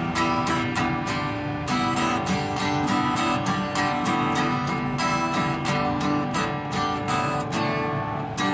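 Acoustic guitar strummed in a steady rhythm, about three or four strums a second, ringing chords.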